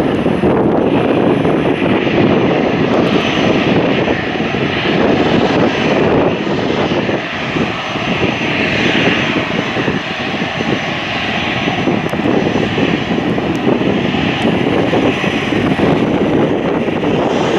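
Jet engines of an Airbus A320-family airliner running as it taxis: a loud, steady rushing noise that swells and eases slightly.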